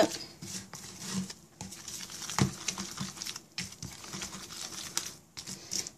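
Plastic spoon stirring and scraping a thick paste of protein powder and water in a plastic tub: irregular soft scrapes and taps, with a couple of sharper clicks.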